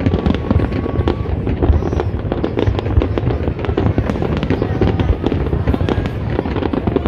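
Fireworks display going off in a dense, continuous run of bangs and crackles, many every second, without a break.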